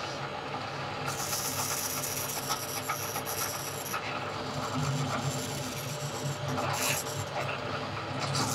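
Drill press running with a steady motor hum while its twist bit bores through wooden knife-handle scales, a hissing cut that starts about a second in.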